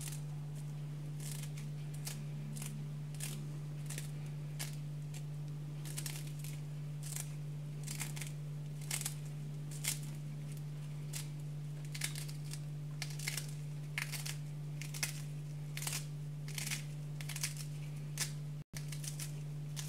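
A small kitchen knife cutting through a bunch of fresh parsley held in the hand: crisp snips about every half second, unevenly spaced. A steady low hum runs underneath.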